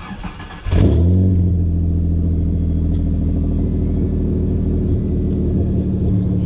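Holden Commodore engine starting about a second in, flaring briefly, then settling into a steady idle.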